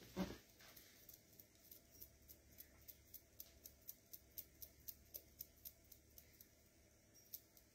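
Faint, light clicking, about three to four clicks a second, from beaded bracelets knocking together as a hand waves back and forth. A short rustle of clothing or movement comes right at the start.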